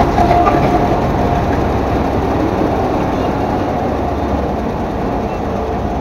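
Diesel locomotive engine running loudly with a steady deep rumble, working hard as the train moves off and throwing sparks from its exhaust stack.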